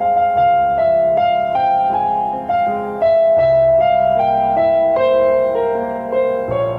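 Slow, calm piano music: a melody of sustained notes over low bass notes, with no voice.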